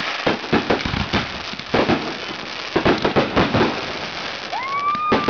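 Fireworks going off in quick succession: a rapid string of bangs over crackling, with a whistle that rises and then holds steady near the end.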